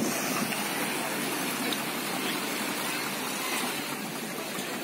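Shallow sea water washing and lapping over sand at the shoreline, a steady rush of small waves.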